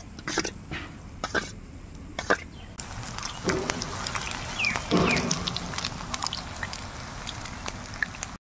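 A spoon clinks and scrapes in a steel bowl of batter. From about three seconds in comes the steady sizzle of battered spiral potatoes deep-frying in hot oil in a pan. A short cough-like sound comes about five seconds in.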